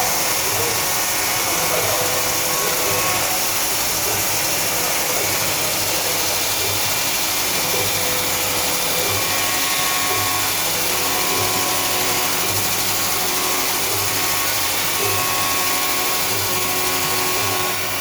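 CNC vertical machining center running: a steady hiss with whining tones that come and go.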